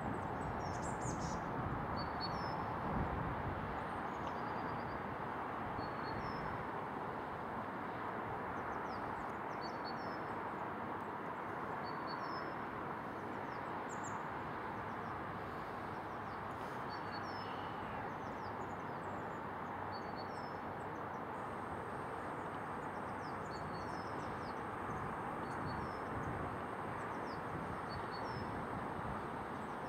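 Small birds chirping, short calls repeating every second or so, over a steady outdoor background rumble.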